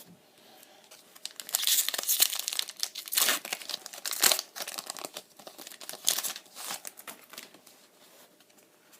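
Foil wrapper of a Pokémon trading card booster pack being crinkled and torn open. The rustling starts about one and a half seconds in and dies down near the end.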